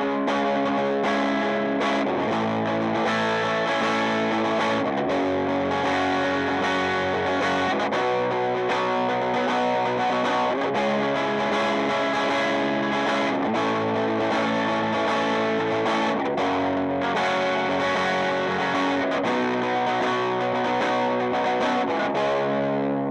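Squier Classic Vibe Jaguar electric guitar played through its bridge humbucker with a bit of overdrive, strumming sustained chords that change every second or two.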